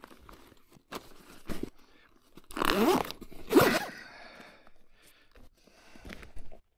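Outdoor gear being handled and packed into a bag: soft rustling and scraping, with two louder rasping sounds a little before and after three seconds in.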